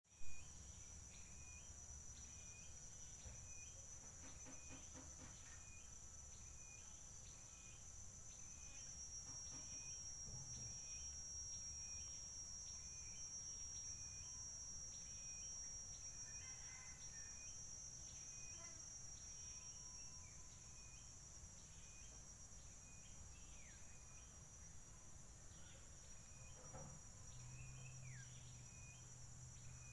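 Faint outdoor ambience. A steady high-pitched insect drone runs throughout, with a short chirp repeating about once a second. A few brief falling bird calls come in the second half, over a low rumble.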